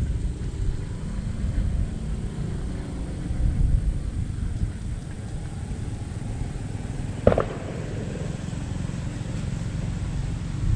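Wind buffeting the microphone, a steady low rumble. One short sharp sound cuts through about seven seconds in.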